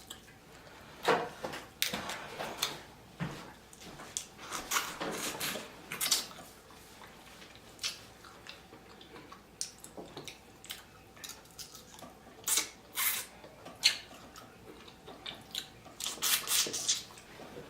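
Close-miked eating of a seafood boil of crab legs, crawfish and shrimp: irregular smacks, clicks and mouth sounds, with louder clusters about a second in, around five seconds, near thirteen seconds and near the end.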